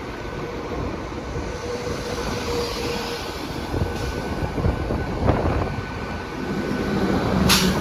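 A pair of Class 197 diesel multiple units running in, a steady rumble with a faint whine running through it. A brief, sharp hiss comes near the end.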